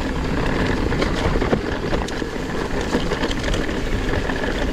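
Mountain bike riding down dirt singletrack: a steady rumble of tyres and wind, with many small rattles and clicks from the bike over the bumps.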